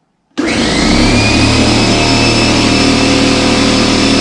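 Fortress 27-gallon air compressor switched on: its motor and pump start abruptly about half a second in and run steadily and loud, a whine rising briefly as it comes up to speed. It is pumping up a tank drained empty.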